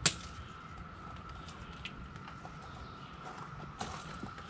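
A coiled vinyl water hose and its fittings being handled and uncoiled: one sharp clack at the very start, then a few lighter knocks and a louder one near the end. A steady high-pitched tone drones in the background throughout.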